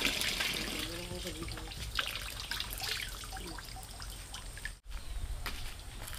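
Water trickling and splashing from a cast-iron hand pump's spout as its handle is worked, with a few short knocks.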